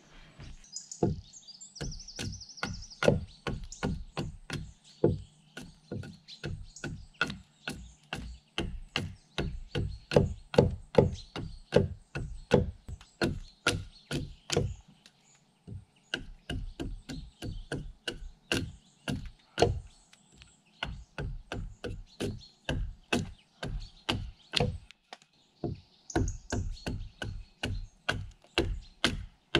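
Small hand axe chopping into the end of a log in quick, repeated strikes, about two a second, with a couple of short pauses.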